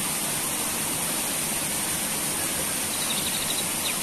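Steady rush of water flowing through a shallow irrigation channel and around rocks.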